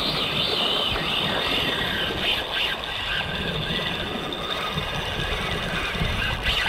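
Spinning reel being cranked against a fish on a bent surf rod, its gears whirring steadily, over wind rumbling on the microphone and surf.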